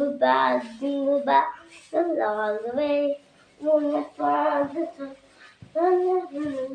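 A child singing a song alone with no accompaniment, in short held phrases broken by brief pauses.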